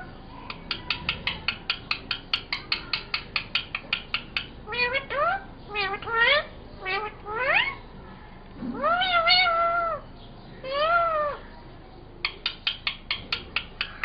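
Indian ringneck parakeet vocalising: a rapid run of clicks at about five a second, a few quick rising calls, then two drawn-out meow-like calls mimicking a cat, and clicking again near the end.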